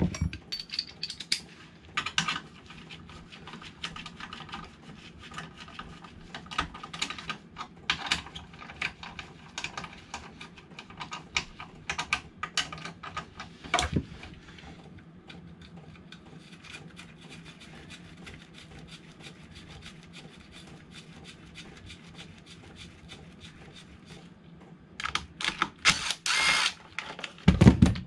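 Hand tools and metal bolts clicking and knocking against the motorcycle engine and frame as the engine mounting bolts are fitted. The sounds come in irregular clicks, then go quieter for a while, and a louder scraping clatter of handling comes near the end.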